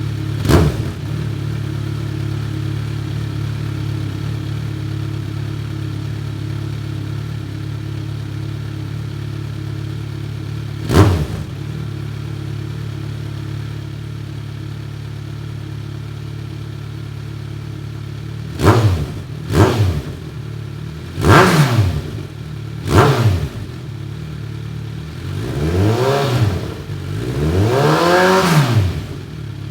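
2018 Kawasaki Ninja 1000's inline-four engine idling steadily through a newly fitted Black Widow 4-2-1 exhaust. A throttle blip comes about half a second in and another at about eleven seconds. From about nineteen seconds there is a run of four quick revs, then two longer, slower revs near the end.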